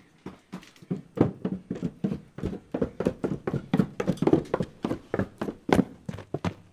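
A rapid, uneven run of knocks and thuds on wooden boards, about four or five a second and carrying on without a break, like hurried footsteps or knocking on wood.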